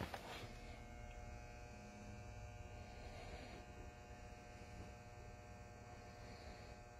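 Faint, steady electrical hum with a light buzz, close to near silence.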